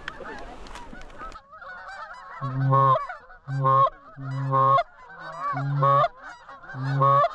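A flock of Canada geese honking, many calls overlapping, with five loud, evenly spaced two-note honks close by from about two and a half seconds in.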